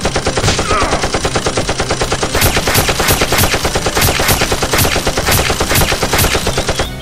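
Automatic gunfire sound effect: one long, unbroken string of rapid shots that starts and stops abruptly.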